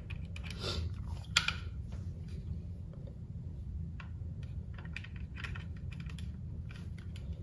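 Scattered light clicks and taps from handling a Trinity 2 handheld tuner and plugging its USB updating cable in, the sharpest click about a second and a half in, over a low steady hum.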